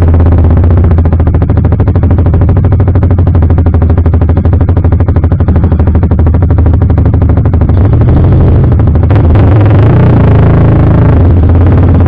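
CFMoto 300SR's single-cylinder engine running loud through an Akrapovic full-system exhaust while riding. The note pulses unevenly at first and runs steadier for the last few seconds.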